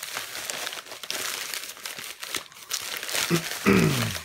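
Plastic mailer bag crinkling as it is handled and a paper-wrapped package is slid out of it. Near the end there is a short, loud sound that falls in pitch.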